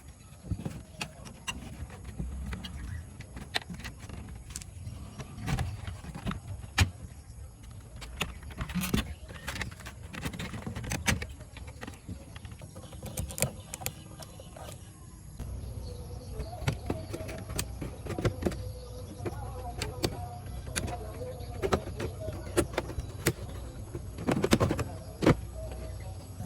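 Workbench handling noises from restoring a cassette tape deck: scattered small clicks, taps and knocks of parts and tools. About halfway through, a steady low hum with faint tones comes in under them.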